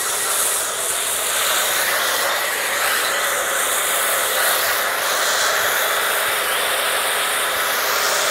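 Foam cannon on a Kärcher electric pressure washer spraying steadily with the trigger held: a continuous even hiss of foaming spray, with the pressure washer's motor humming at a steady pitch underneath.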